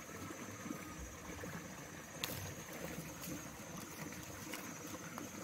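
Faint rustling and scraping in dry leaves and soil as a hand and tool work at a crevice by a rock, with a few light clicks, over a steady high insect drone.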